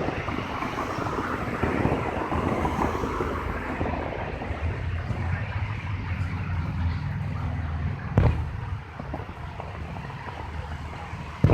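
A vehicle engine running with a steady low hum and road noise, which fades after the first few seconds. A sharp firework boom cuts in about eight seconds in, and another comes right at the end.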